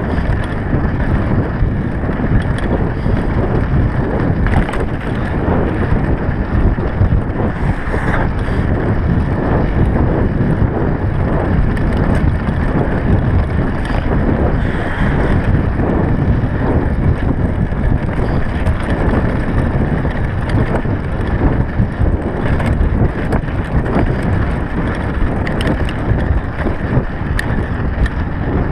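Wind buffeting the microphone of a mountain bike rider, with the knobby tyres rolling over a dirt and gravel track and small rattles and clicks from the bike.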